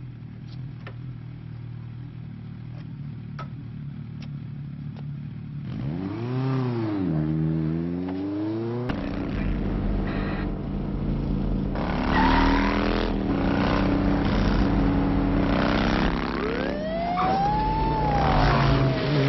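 Motorcycle engine idling, then revved up and back down about six seconds in. After that, motorcycles ride by louder, and a siren wails in the last few seconds.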